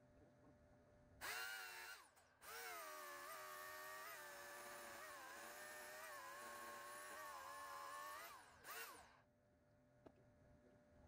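Corded electric chainsaw motor whining: a short burst, then about six seconds of steady running with slight dips in pitch, then a last brief burst that winds down.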